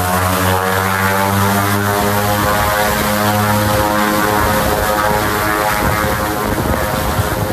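De Havilland Canada DHC-6 Twin Otter's two turboprop engines and propellers running while the aircraft taxis: a steady, loud propeller drone made of a stack of tones. The deepest tones fade and turn ragged about halfway through as the plane turns away.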